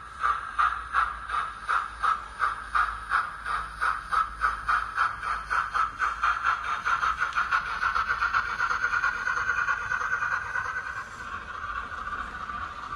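Steam-locomotive exhaust chuffs from the sound decoder of a Hornby OO gauge streamlined W1 model, played through its small on-board speaker. The chuffs speed up from about two a second to a rapid beat that blurs into a steady rush, then grow quieter near the end as the loco pulls away.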